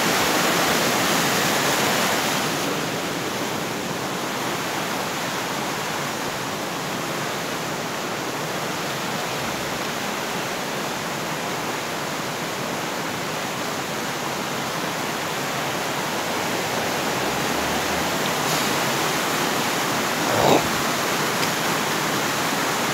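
Rushing water of a small waterfall pouring white water through a rocky river channel, a steady, dense rush with no pitch. A brief knock about 20 seconds in.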